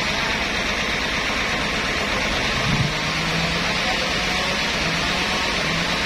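Steady noise of machinery running, with a faint low hum wavering in and out and a short knock just under three seconds in.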